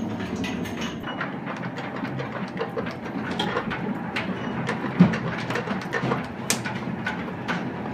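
Underground chain conveyor running: dense, irregular metallic clanking and rattling, with a heavier knock about five seconds in.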